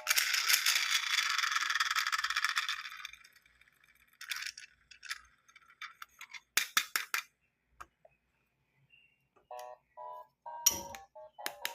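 Small plastic toy pieces and packaging rattling and crinkling for about three seconds, then scattered clicks and taps as pieces are handled. A short run of electronic melody notes comes in near the end.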